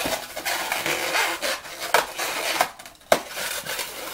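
Inflated white Qualatex latex balloon rubbing and creaking against the hands as a scrap is twisted and tied together, with a few short sharp squeaks about two and three seconds in.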